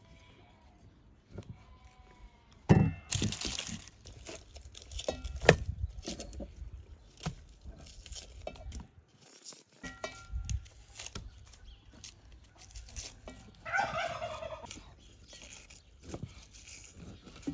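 Knife work on food: a knife peeling an onion, then cutting raw meat on a wooden board, with scattered sharp knocks and scrapes, the loudest about 3 and 5.5 seconds in. About 14 seconds in, a farmyard bird gives one short, falling, rattling call.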